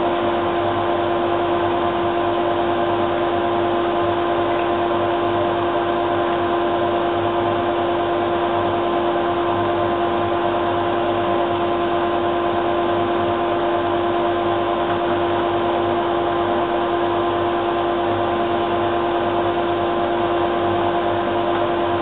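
Workshop dust extractor and bandsaw running steadily with no cut under way. It is an even motor hum with a steady whine over a rush of air, unchanging throughout.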